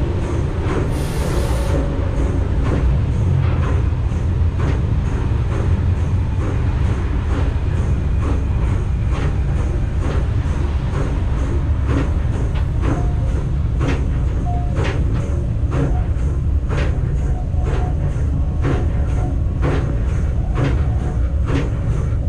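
Vintage electric train running on the track: a steady low rumble of wheels and motors, with irregular clicks and knocks as the wheels cross rail joints and points. A short hiss sounds about a second in.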